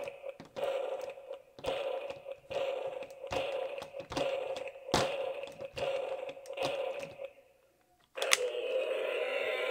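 A plastic toy dinosaur thumped along a tabletop in steady steps, about one every second, over a steady hum. The sound drops out about seven and a half seconds in, then a click comes and the hum resumes.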